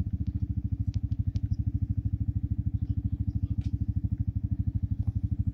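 A small engine running steadily at idle, a fast, even chugging that holds at one speed.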